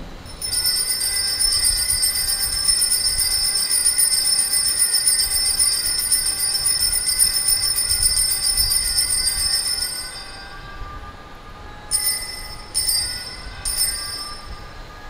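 Altar bells rung at the elevation of the host at the consecration: a continuous high jingling ring for about ten seconds, then three short rings in quick succession.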